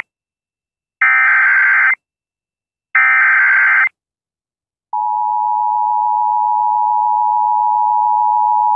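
Emergency Alert System SAME header: two loud one-second bursts of warbling digital data screech about two seconds apart, then the steady EAS attention tone starting about five seconds in, the signal that opens a tornado warning.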